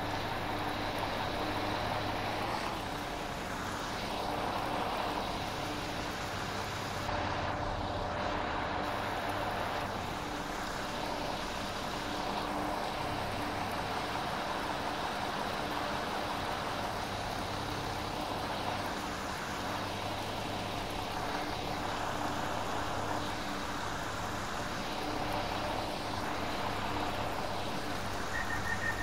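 London Overground Class 172 Turbostar diesel multiple unit running, a steady hum from its underfloor diesel engine and transmission over wheel and rail noise. A steady high tone comes in just before the end.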